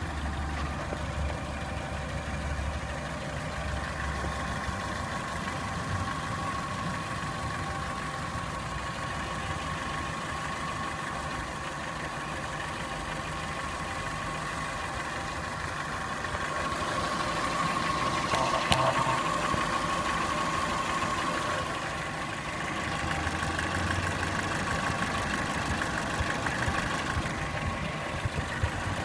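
Renault Symbol's petrol engine running with a knock from inside the engine. The sound swells for a few seconds about two-thirds of the way through, with one sharper hit in the middle of that stretch, then settles back.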